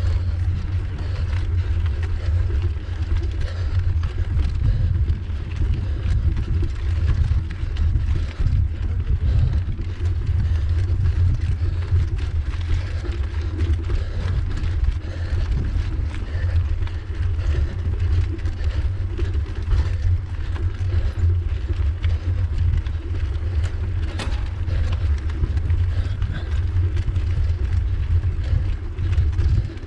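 Mountain bike climbing a cobblestone road, heard through a handlebar-mounted camera: a steady low rumble with rattling from the tyres and bike shaking over the cobbles.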